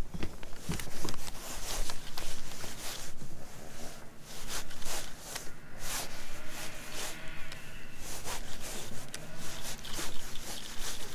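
Spinning reel being cranked on a retrieve, with irregular rustling and knocks from handling the rod.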